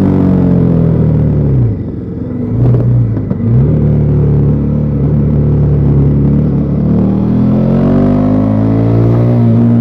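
Bajaj Pulsar NS400Z single-cylinder engine through its stock exhaust. The revs fall as the bike slows, with a short throttle blip about three seconds in. It then runs steadily before climbing again as it accelerates near the end.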